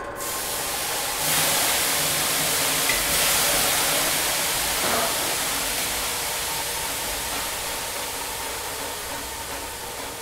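A broad rushing hiss that swells about a second in and slowly fades, with faint steady tones beneath it.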